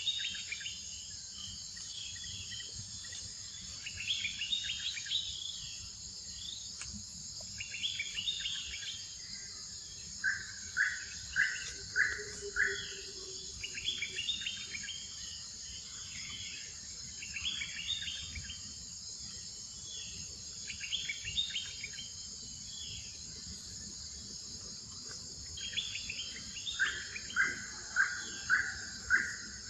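Forest ambience: a steady high insect drone under birds calling. Short bursts of chirps come every few seconds, and twice a bird gives a run of five or six evenly spaced, louder whistled notes, about ten seconds in and again near the end.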